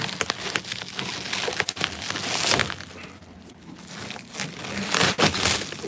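Bubble wrap crinkling and rustling as it is handled and pulled apart, full of small crackles, louder about two seconds in and again about five seconds in.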